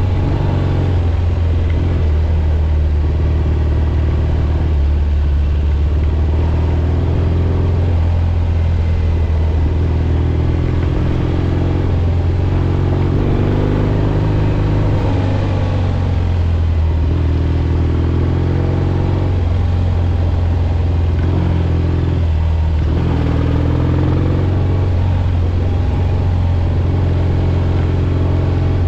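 The 650 cc parallel-twin engine of a 1967 Triumph Bonneville T120 runs steadily under way, heard from the rider's helmet camera. The engine note rises and falls several times.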